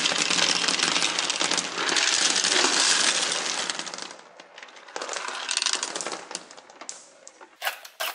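A stream of small plastic beads pouring out of a toy truck's trailer onto a pile of beads, a dense clattering rattle that thins out about four seconds in. A few scattered bead clicks follow, with several sharper clicks near the end.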